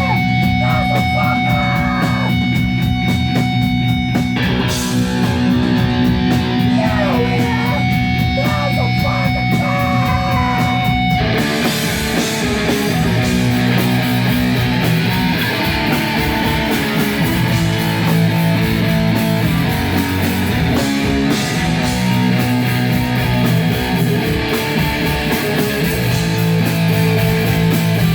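Loud live rock band playing with distorted electric guitars. About eleven seconds in, the music shifts into a denser, fuller section.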